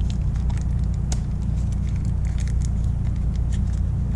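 Small plastic parts bag rustling and crinkling as it is handled and opened, with scattered light clicks of the small plastic parts inside, over a loud, steady low hum.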